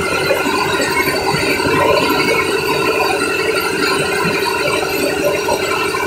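A river ferry's engine running steadily: a continuous drone with a rattle over it.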